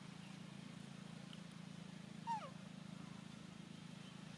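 A macaque gives one short falling squeak about two seconds in, over a steady low hum.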